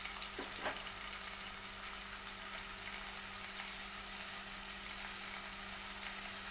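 Chopped onion sizzling in hot oil in a steel pot, a steady frying hiss as the onion is cooked to a light pink. Two faint taps sound about half a second in.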